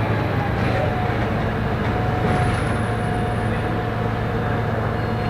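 Volvo B290R city bus with a Voith automatic gearbox running: a steady low engine drone with a steady whine held over it.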